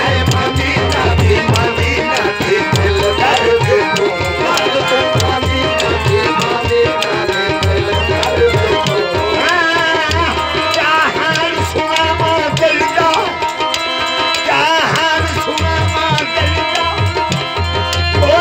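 Qawwali music: tabla playing a steady rhythm under long held harmonium notes, with a voice gliding in briefly past the middle and again near the end.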